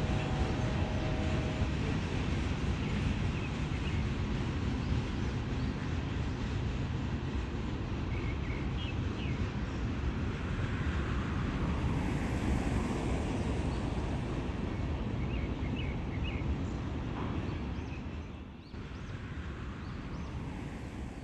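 Freight train of hopper cars rolling past with a steady rumble of wheels on rail. The tail of a locomotive horn chord dies away about two seconds in.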